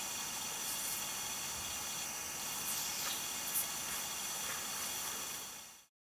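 Steady hiss with faint high whining tones running under it and a few faint brief ticks; it cuts off abruptly near the end.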